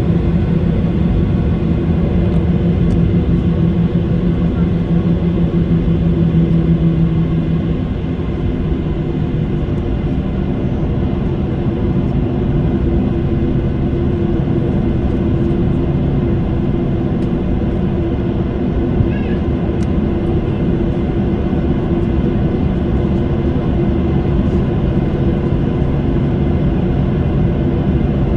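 Airliner cabin noise while taxiing: the engines and airframe give a steady low rumble with a level hum. The lower hum tone fades out about eight seconds in, and the rumble eases slightly.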